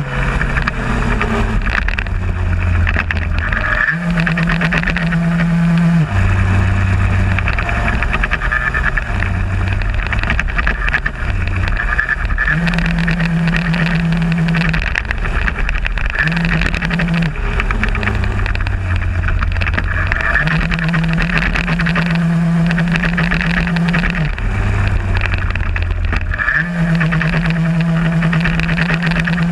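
Solex moped's small single-cylinder two-stroke engine running hard, heard from on board. Its note drops to a lower pitch several times and then climbs back, as when the rider eases off for turns and opens up again.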